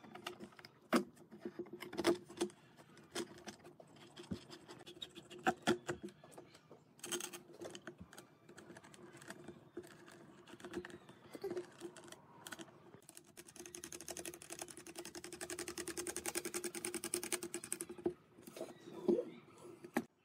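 Pine chair-leg pieces and steel bolt hardware handled on a wooden workbench: scattered knocks and clicks of wood and metal, then about five seconds of fast, even clicking about two-thirds of the way in.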